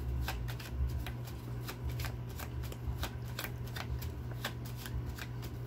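A deck of reading cards being shuffled by hand: a steady run of light, irregular card clicks and flicks, several a second, over a low steady hum.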